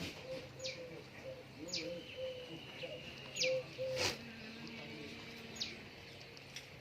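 Birds calling: four short, high calls that slide sharply downward, spread across the stretch, over lower wavering notes. A single sharp click about four seconds in.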